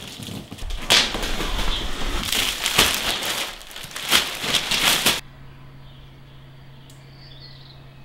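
Clear plastic sheeting rustling and crackling as it is pulled off a large cardboard box, with several sharp crackles. The crackling stops abruptly about five seconds in, leaving a low steady hum and faint bird chirps.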